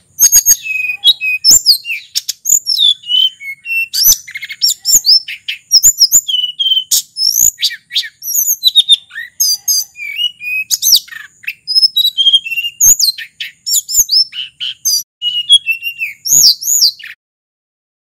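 Hill blue flycatcher (sulingan or tledekan gunung) singing a long, rapid run of varied whistled phrases that sweep up and down, with scattered sharp clicks. The song cuts off about a second before the end.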